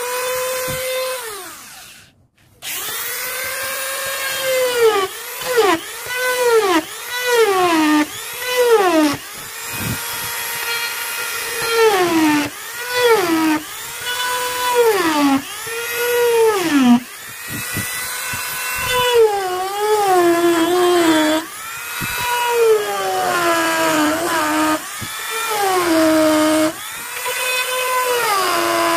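Handheld electric rotary tool grinding and carving a coconut shell: its motor whine sags in pitch each time the bit bites into the shell and climbs back as it eases off, over and over. The tool cuts out briefly about two seconds in, then runs on.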